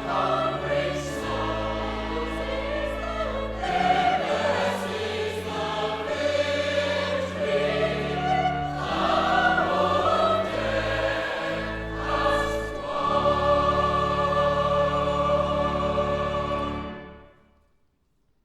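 Choir singing with accompaniment, a slow sequence of sustained chords ending on a long held final chord that fades out near the end.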